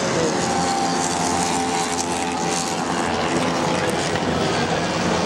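70cc two-stroke racing scooter engines buzzing at high revs, a steady drone with a faint whine that drifts slowly in pitch.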